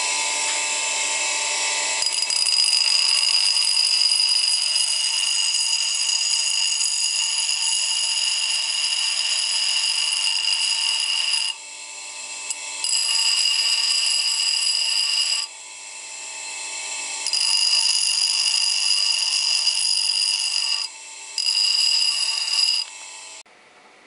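Bench grinder's abrasive wheel grinding down the jaws of a steel open-end spanner, a steady high-pitched grinding whine. It eases off briefly a few times as the spanner is lifted and repositioned, and stops shortly before the end.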